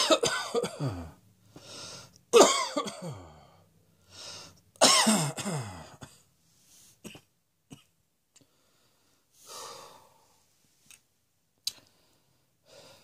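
A person coughing hard three times, about two and a half seconds apart, each cough preceded by a quick in-breath and ending in a voiced tail that slides down in pitch. After that there is only breathing and a few small mouth clicks.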